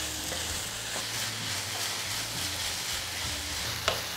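Banana flower and egg stir-fry sizzling steadily in a nonstick pan while a wooden spatula stirs it, the egg cooking through into crumbly bits. A light click near the end.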